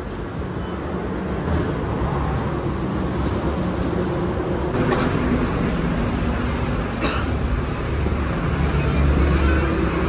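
Steady road traffic noise with a vehicle engine running, and two sharp clicks about five and seven seconds in.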